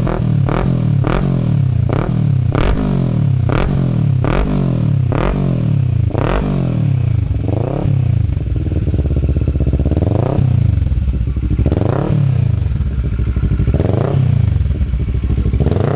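Kawasaki ER-6n's 650 cc parallel-twin engine, fitted with a TRS aftermarket slip-on muffler, revved repeatedly through its exhaust. For about six seconds it takes quick throttle blips, under a second apart, then four slower, longer revs that rise and fall back to idle.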